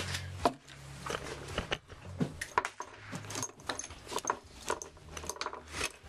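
Irregular sharp metallic clicks and clinks of rifle cartridges and a stripper clip being handled on a wooden shooting bench by a Mosin-Nagant rifle, the loudest about half a second in.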